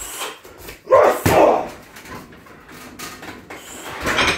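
A man breathing hard between kicking combinations, with two loud, heavy breaths about a second in and another near the end.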